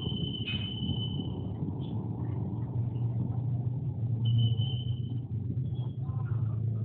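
Steady low engine rumble, swelling briefly about four seconds in, with a thin high whistle-like tone that sounds for about a second near the start, again later for about a second, and once more briefly.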